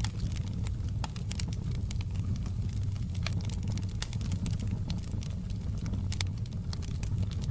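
Fireplace fire crackling, with frequent sharp irregular pops and snaps over a steady low rumble.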